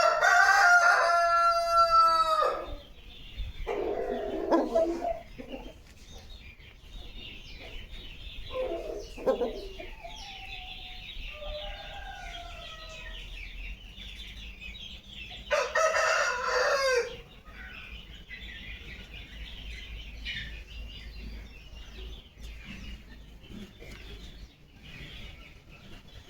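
Aseel rooster crowing twice, a long call at the start and another about 16 seconds in, with shorter clucking calls in between.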